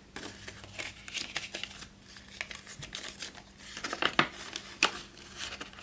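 Paper banknotes handled and counted by hand: crisp rustling and flicking of dollar bills, with a couple of sharper snaps of paper a little past four seconds in.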